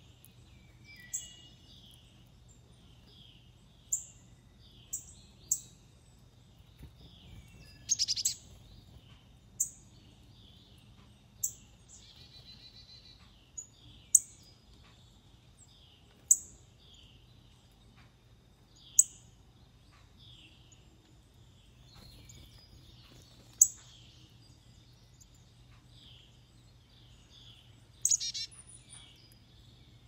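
Wild songbirds calling: a loud, sharp, high chip every second or two over a steady chorus of softer, quick chirps, with a short rapid trill about twelve seconds in.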